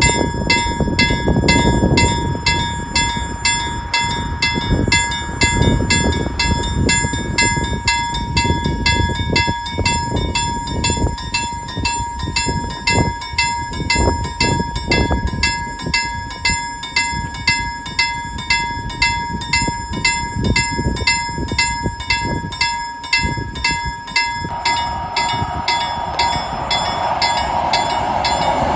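Half-barrier level crossing's warning bell ringing in rapid, even strokes while the lights flash and the barriers lower, warning of an approaching train. Near the end the train itself comes in, growing louder.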